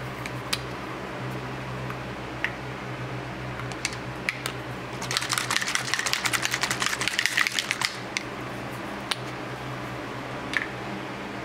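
A steady mechanical hum, with scattered light clicks and a run of rapid clicking lasting about three seconds midway.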